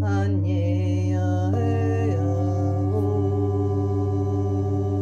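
Wordless chant-like singing in held notes over a steady low drone and a singing bowl's ringing tone with a slow, even beat. The voice slides into its first note and moves to new notes about one and a half and three seconds in.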